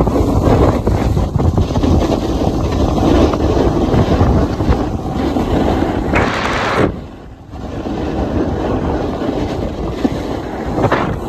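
Wind buffeting the phone's microphone while skiing downhill, mixed with the hiss of skis sliding over groomed snow. About six seconds in, a brief harsher scrape, then the noise drops away for a moment before returning.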